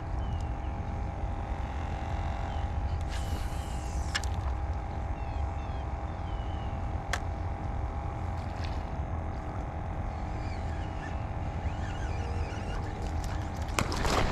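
Steady low rumble with a faint steady hum, then a sudden splash just before the end as a snook strikes the bait at the surface.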